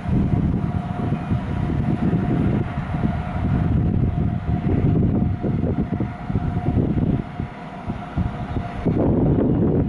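Wind buffeting the microphone over the low running noise of a distant train approaching the station. A steady high tone runs under it and cuts off suddenly about nine seconds in.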